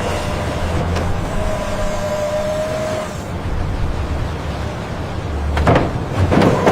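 Steady mechanical rumble, like a running vehicle or machine, with a short held whine in the first half and two brief rushes of noise near the end.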